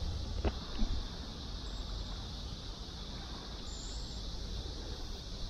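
Wind rumbling and buffeting on the microphone over a steady high-pitched insect chorus, with a single short click about half a second in.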